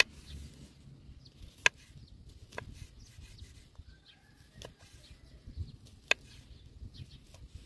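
Kitchen knife slicing mushrooms on a wooden cutting board: a few sharp knocks of the blade striking the board, the loudest about one and a half seconds in and another strong one about six seconds in, with lighter cuts between.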